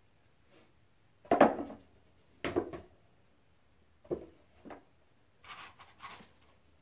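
A handful of short knocks and scraping rubs from objects being handled and set down, the loudest about a second and a half in, with lighter scrapes near the end.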